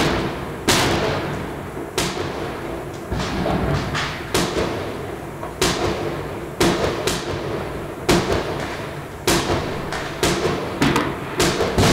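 Fireworks and firecrackers going off: more than a dozen irregular bangs, each trailing off in a long echo.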